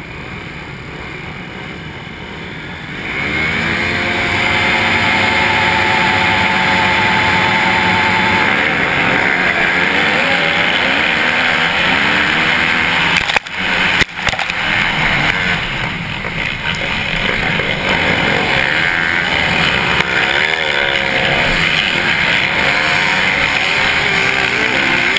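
Motocross bikes launching from the start and accelerating hard. Their engines jump to full throttle about three seconds in and rev up through the gears.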